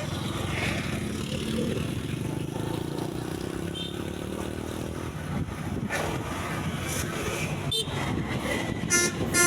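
Road vehicle engines running past at a bend, a steady rumble with road noise. Near the end a multi-tone bus telolet horn starts sounding.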